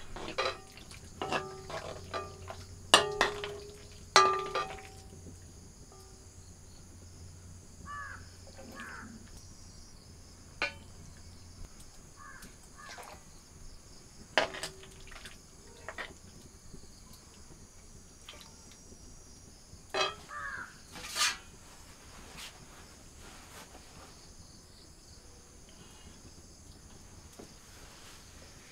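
Metal ladle clinking and scraping against steel plates and an iron cooking pot as curry is served, a quick run of clinks in the first five seconds, then single clinks every few seconds.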